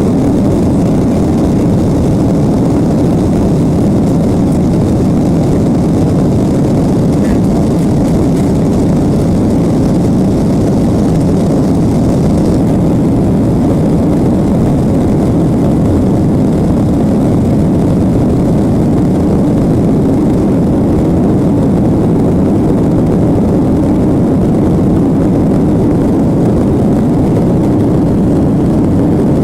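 Boeing 737 airliner's jet engines running, a steady, loud, low noise with rushing air that holds unchanged throughout.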